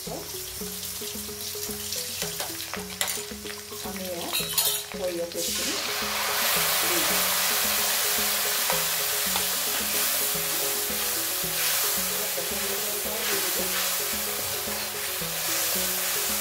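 Onions frying gently in oil in a kadai, with a few clinks and scrapes of a steel spoon. About five seconds in, a loud sizzle breaks out as ground mustard paste goes into the hot oil, and it keeps sizzling steadily while it is stirred.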